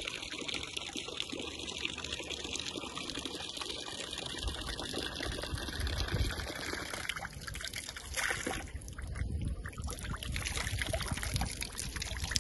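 Water trickling and splashing steadily from the spout of a public drinking fountain.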